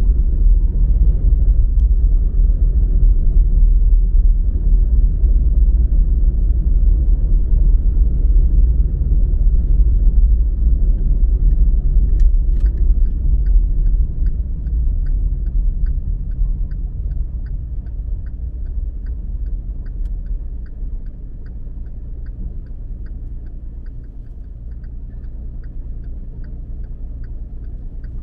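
Steady low vehicle rumble that eases off in the second half. Just before the middle a click starts a light, regular ticking of about two a second that runs on to the end.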